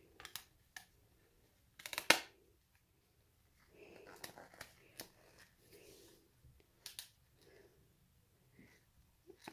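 Hard plastic figure parts and a clear plastic base being handled: scattered sharp clicks and taps, the loudest about two seconds in, with faint rustling in between.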